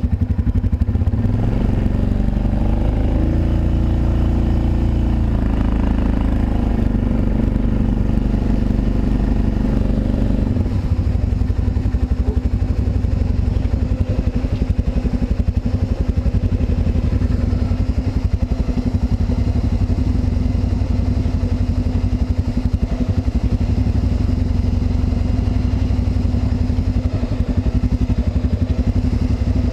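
ATV engine running close to the microphone, its pitch shifting up and down for about the first ten seconds, then settling into a steady run.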